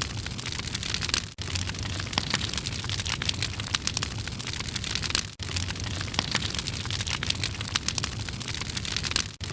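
Fire sound effect: a steady rush of burning with dense, sharp crackling. It drops out for an instant three times, about every four seconds.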